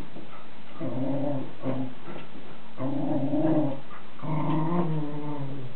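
A dog growling in three drawn-out bouts of about a second each while it digs and arranges its cushion bed; the last growl wavers in pitch.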